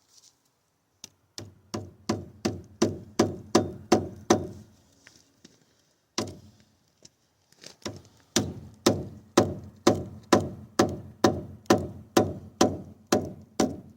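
Batoning: a baton striking the spine of an out-the-front stiletto knife to drive the blade through wood, a steady run of sharp knocks about two a second, pausing for a few seconds midway and then resuming.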